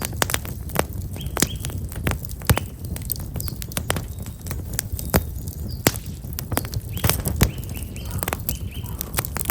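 Black locust firewood burning in a campfire, crackling with irregular sharp pops and snaps over a low steady rumble. Small birds chirp faintly about a second in and again near the end.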